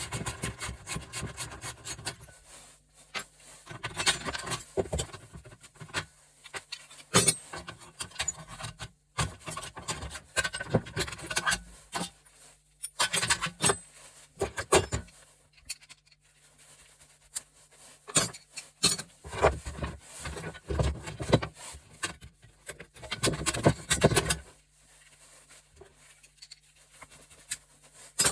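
Parts of a gas stove being taken apart by hand: irregular metal clinks, knocks and scraping, in bursts with short pauses between.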